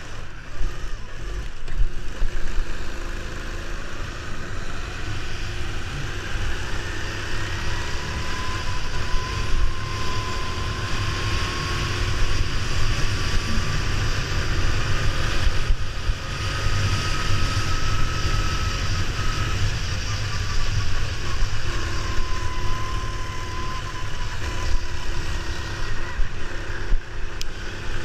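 Go-kart engine running at speed, heard from the driver's seat over a heavy low rumble of wind on the microphone. Its pitch climbs slowly for about ten seconds, drops back, then climbs again near the end.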